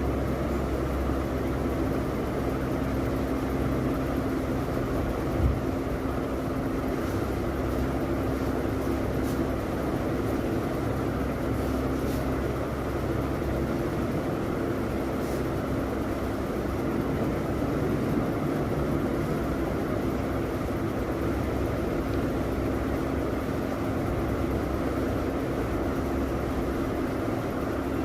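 Steady mechanical hum with a low drone, unchanging throughout, with one brief knock about five and a half seconds in.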